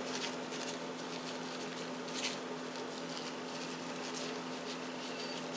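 Soft, faint patter of dry instant cinnamon-and-spice oatmeal being sprinkled over a layer of cake mix, with a few light rustles, over a steady low hum.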